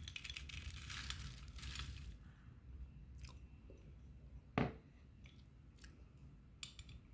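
Dry crumbled chalk pieces poured from a bowl onto a plate, a dense rattling patter for about two seconds; a single sharp knock follows a couple of seconds later.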